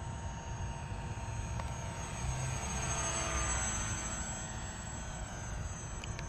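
Electric RC park-flyer plane, a Suppo 2204 brushless motor turning a 7-inch propeller, whining in flight. It grows louder as it passes close about three seconds in, its pitch shifting as it goes by.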